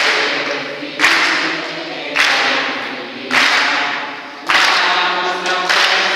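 Group of children and adults singing an alleluia together, with a sharp clap about once a second, each ringing on in a reverberant room.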